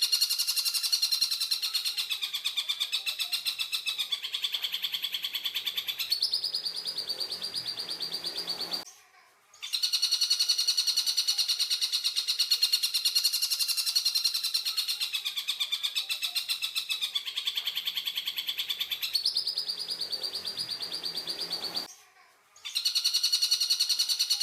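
Tengkek Buto calling in a fast, rattling trill of rapid even notes that dips and rises in pitch. The trill runs in long strings, broken twice by a brief silence, and the same sequence repeats.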